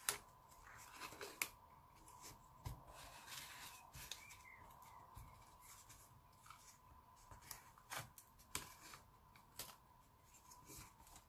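Faint rustling and scattered light clicks of a paper strip being pressed by hand into place around a cardstock ring, over a faint steady whine.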